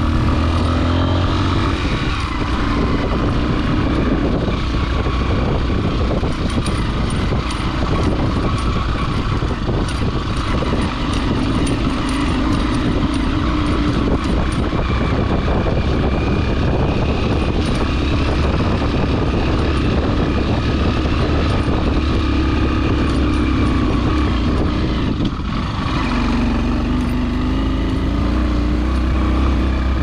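Motorcycle engine running steadily under way on a rough dirt trail. Near the end the engine note dips briefly, then climbs as it revs up again.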